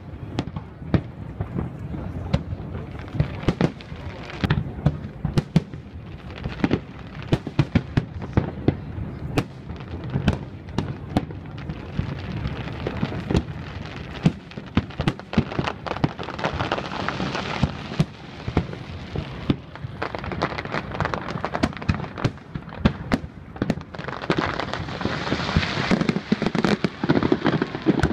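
Aerial fireworks shells bursting in a rapid, irregular series of sharp bangs over a continuous bed of further bursts, the noise thickening briefly around the middle and again near the end.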